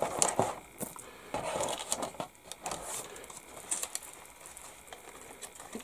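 Clear plastic bag crinkling and rustling as a thin brass photo-etch fret is handled and slid back into it, with irregular small clicks and taps.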